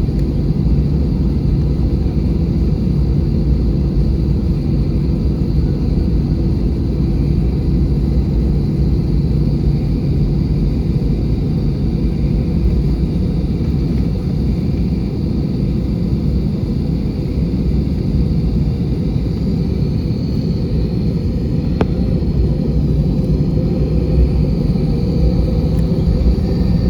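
Airbus A320 cabin noise: a steady deep rumble of engines and airflow with a low, even hum, and no change in power through the stretch.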